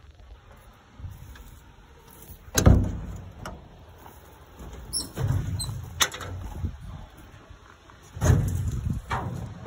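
Metal equipment-compartment doors and latches on a 1964 Seagrave fire truck's body being opened and handled: a series of clanks and knocks, the loudest about two and a half seconds in, with low rumbling handling noise between.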